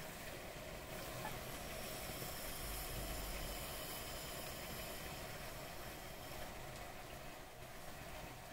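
Liquid nitrogen boiling off in CPU overclocking pots as it is poured in: a steady hiss that slowly fades toward the end.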